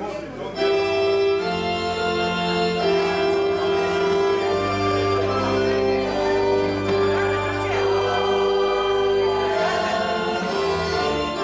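Organ music playing long, sustained chords, starting about half a second in.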